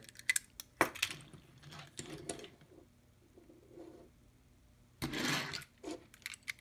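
Mattel die-cast toy cars handled and set down on a wooden table: a few light clicks and knocks, with a short rustling rush about five seconds in.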